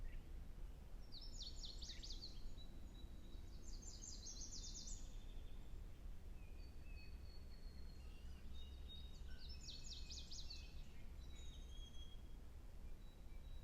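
Songbirds singing: three short bursts of quick, high trilled notes with a few thin whistled notes between, over a steady low rumble of outdoor background noise.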